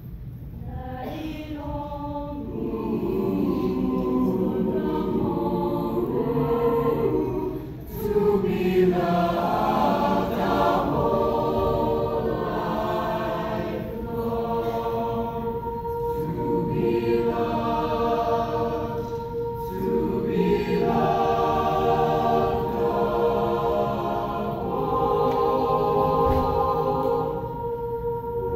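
A choir singing in harmony, with a brief break between phrases about eight seconds in and one note held steady through the second half.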